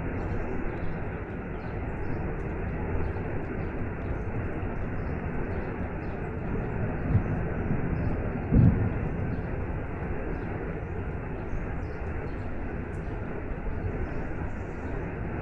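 Steady rushing of a waterfall with rain, a dense low noise. Two brief low thumps stand out about halfway through.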